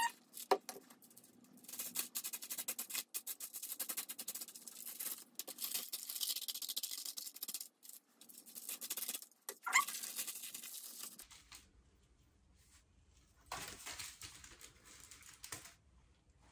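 Aluminium highlighting foils crinkling and rustling as they are handled in the hair and worked with a dye brush. The crackle comes in stretches, dense through the first half, dropping away after about eleven seconds, with one more short burst near the end.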